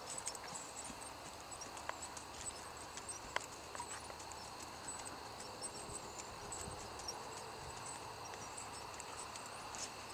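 Hoofbeats of a Percheron paint gelding moving under a rider on a dirt arena surface, a scattered clip-clop of hoof strikes.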